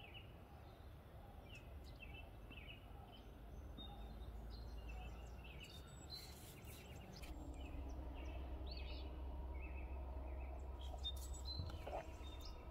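Several songbirds chirping and calling in short, scattered notes, over a low steady rumble.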